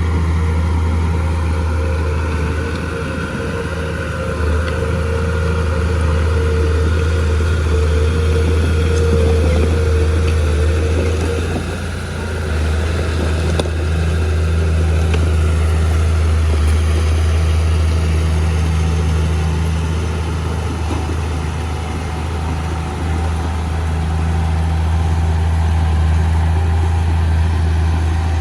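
Mitsubishi 315M bulldozer's diesel engine running with a steady low drone, its level swelling and easing a little as it works. A higher whine rides over it for about the first eleven seconds.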